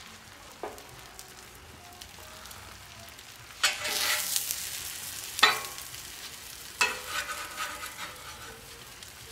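Eggs and pancakes frying quietly on a Royal Gourmet 36-inch flat-top griddle. About three and a half seconds in, a metal spatula scrapes across the griddle under the eggs, with a sudden louder sizzle. Two more sharp scrapes and crackling sizzle follow as the eggs are turned.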